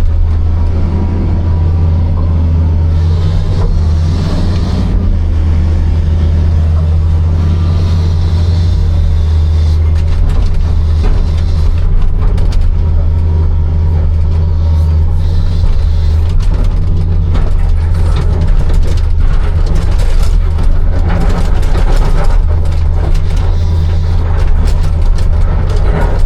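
Hitachi 260 excavator's diesel engine running steadily under load, with the hiss of its hydraulics coming and going as it works. Stone knocks and clatters against the steel bucket, more often in the second half.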